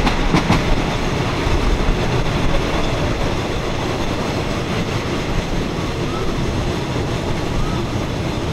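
Moving passenger train heard from inside the carriage: a steady rumble of the car rolling along the track, with a couple of sharp clicks of the wheels over rail joints in the first half second.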